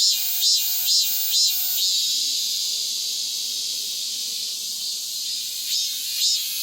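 Cicada singing: a run of pulsed calls, about two a second, gives way about two seconds in to a steady high buzz lasting some three and a half seconds, and the pulsed calls start again near the end.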